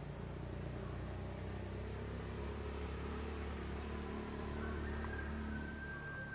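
A motor vehicle's engine: a low, steady rumble that grows a little louder about five seconds in, then eases off.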